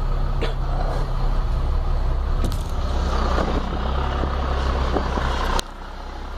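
A city bus's diesel engine running steadily while driving, with road noise. About five and a half seconds in there is a sharp click and the sound suddenly drops.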